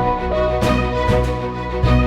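Background music: an upbeat instrumental track with sustained pitched notes over a steady beat.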